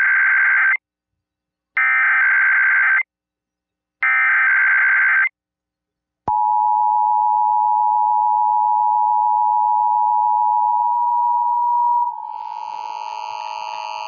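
Emergency Alert System test over the radio: three roughly one-second bursts of SAME header data tones, about a second apart, then the steady two-tone EAS attention signal starting about six seconds in. Near the end the attention signal drops in level and more, higher tones join in.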